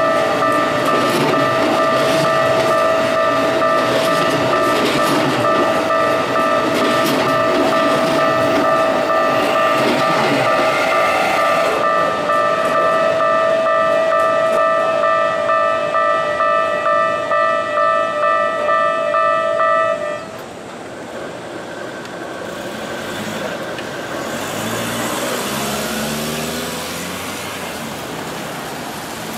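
Japanese level-crossing alarm ringing steadily while a Keikyu train rumbles and clatters over the crossing. The alarm cuts off suddenly about two-thirds of the way through as the crossing opens, and a road vehicle's engine then pulls away, rising in pitch.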